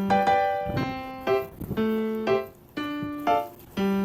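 Background music: a keyboard playing a melody of held notes that change about every half second.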